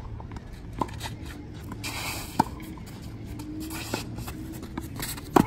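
Tennis rally: a few sharp pops of a tennis ball coming off the racket strings and bouncing on the court, spaced a second or more apart. The loudest is a close racket hit near the end.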